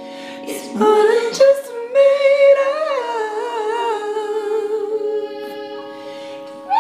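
A singer's unaccompanied voice in a melismatic passage: a quick run of notes about a second in, wavering ornamented notes with vibrato, then a long held note that slowly fades.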